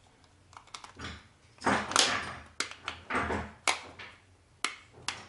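Plastic rocker keys being pushed onto a double wall light switch: a series of sharp plastic clicks, with short scraping and rubbing sounds in between as the keys are worked into place.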